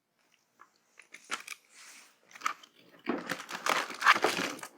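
Plastic snack packets being handled and crinkled, first a few scattered crackles and then a denser stretch of rustling and crinkling from about three seconds in.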